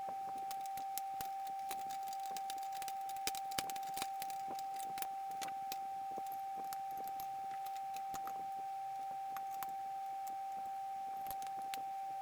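Light clicks and clinks of small metal hardware being handled and fitted by hand during assembly, a few louder ones about three to four seconds in, over a steady high-pitched electrical whine.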